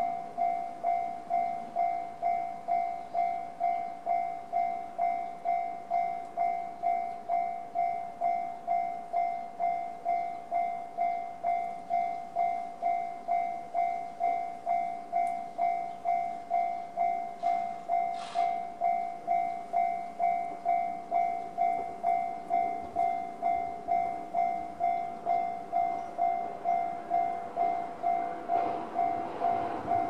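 Japanese level-crossing alarm sounding the JR standard electronic bell tone, an even ding repeated about twice a second while the crossing is active. Near the end the rumble of an approaching train starts to swell under it.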